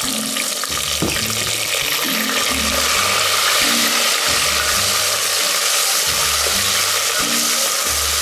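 Chopped tomatoes sizzling in hot oil with golden-fried onions, stirred with a wooden spoon: a loud, steady hiss that stops abruptly at the end.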